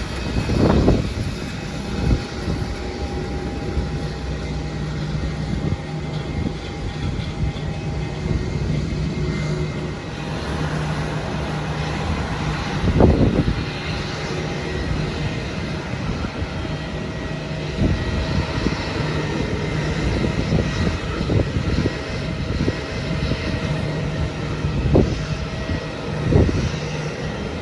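Airliner engines running at the airport, a steady hum with a faint held whine. A few brief low thumps cut through it, the loudest about halfway through.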